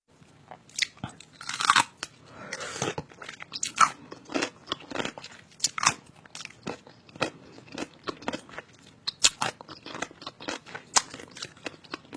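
A person chewing noisily with the mouth open: a dense, irregular run of crunches and wet smacking clicks, several a second.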